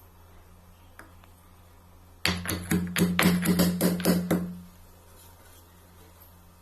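A quick run of about ten sharp knocks over roughly two seconds, starting a little over two seconds in.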